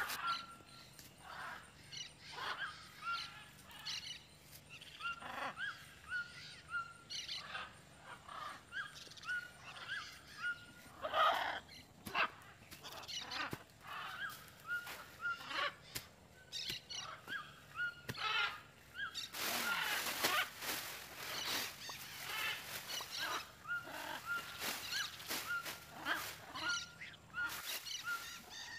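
Forest ambience: a bird repeating a short rising call over and over, a little faster than once a second, with scattered knocks and, from about twenty seconds in, a stretch of hissing noise.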